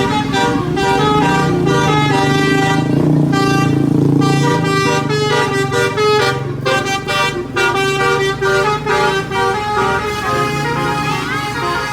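Bus 'telolet' multi-tone musical horn playing a quick melody of short notes that step up and down. A bus engine runs beneath it for the first few seconds.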